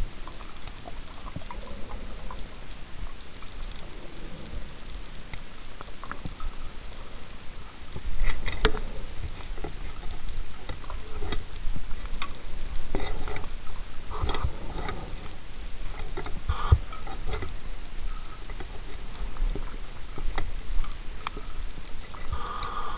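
Underwater water noise around the camera, with irregular louder bursts of crackling, bubbly sound from about eight seconds in.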